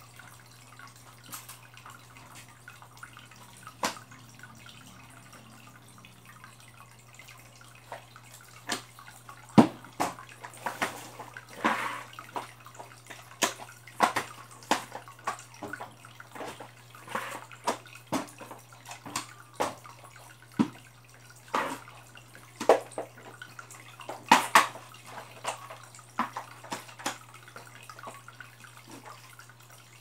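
Water dripping into an aquarium: short, irregular drops, sparse at first and then about once or twice a second from around eight seconds in, over a steady low hum.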